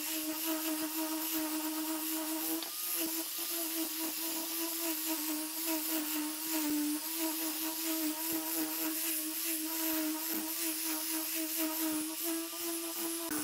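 Electric angle grinder fitted with a sanding disc running steadily while sanding a wooden board, a constant motor whine with the hiss of abrasive on wood. The pitch dips briefly about halfway through as the disc is pressed harder.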